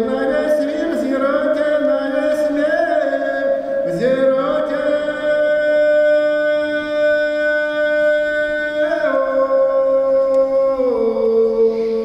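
Unaccompanied folk singing in long, held notes, with two or more voices in harmony that slide to new pitches every few seconds.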